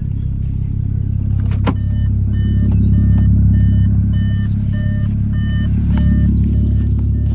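Car engine and drivetrain running with a steady low drone that swells a couple of seconds in; the remaining noise is one that the owner thinks may mean the flywheel still needs replacing. A high beeping chime repeats about twice a second through the middle.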